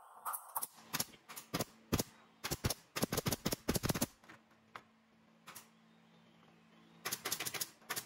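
Pneumatic nail gun firing a rapid string of sharp shots as it nails pallet boards down: several shots a second for about four seconds, then a couple of single shots, then another quick run near the end.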